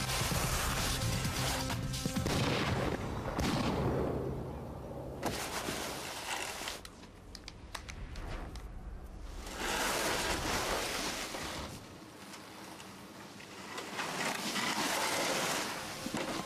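Soundtrack music for about the first two seconds, then surges of loud rushing noise with a few sharp cracks in a quieter stretch in the middle, like gunshots.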